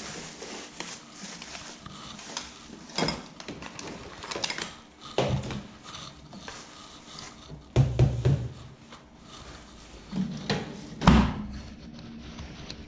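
Rummaging in a stainless-steel kitchen drawer: a plastic bag rustling and jars knocking, then the drawer being pushed shut with heavy thunks, the loudest in the second half.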